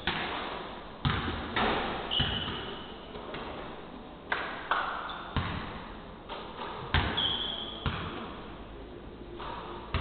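Basketballs bouncing on a hardwood court in a large, echoing hall: irregular thuds, now one ball, now several. A few short high-pitched squeaks come about two, five and seven seconds in.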